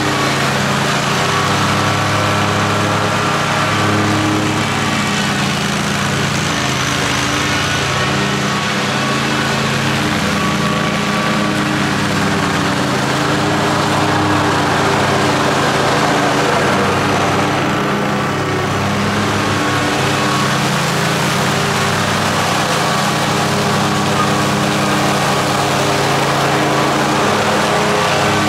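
60-inch zero-turn riding mower running steadily while mowing: a constant engine hum with a rushing noise from the cutting deck, the note shifting only slightly.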